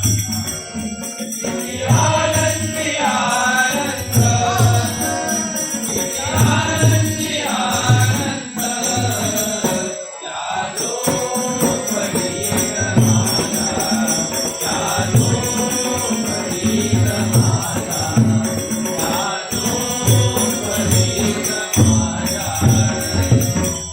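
Devotional bhajan: a sung abhang with a regular drum beat and jingling hand cymbals.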